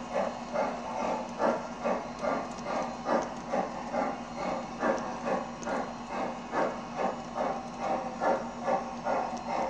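Sound system of an MTH G scale model steam locomotive (the Southern Pacific 4449 of the American Freedom Train) playing a steady steam chuff, about two chuffs a second, over a low steady hum.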